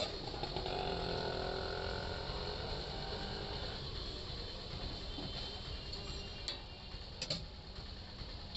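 Ladle scraping as it spreads dosa batter in circles across a hot flat iron griddle, over a steady low hum, with two sharp metallic clicks near the end.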